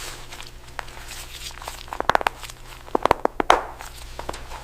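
Two quick clusters of sharp taps or clicks, about two seconds in and again about three seconds in, the second the loudest, over a steady low machine hum.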